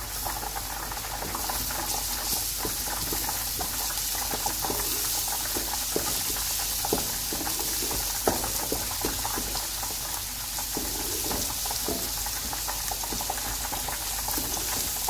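Sliced onions and ginger-garlic paste sizzling steadily in hot oil in a metal pan, stirred with a wooden spatula that taps and scrapes against the pan again and again.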